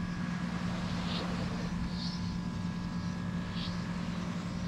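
Small quadcopter drone's propellers humming steadily at one pitch, with a few faint, short, high chirps over it.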